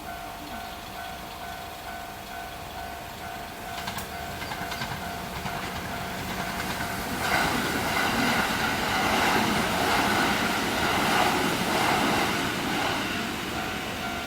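A Japanese level crossing's electronic warning bell rings in a steady repeating ding. A Kintetsu electric train comes through the crossing, with wheels clacking on the rails. The train noise swells about halfway through, is loudest for several seconds and then fades as the bell comes back through.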